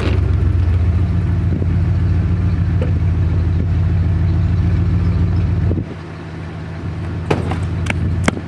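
Motor vehicle engine running steadily at a constant low pitch. About six seconds in, it drops sharply in loudness and keeps running more quietly.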